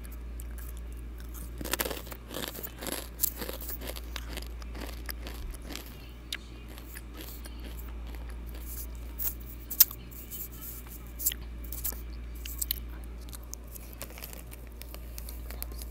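Chewing and mouth clicks held right against the inline microphone of wired earbuds, coming as irregular crunches and sharp crackles over a steady low hum.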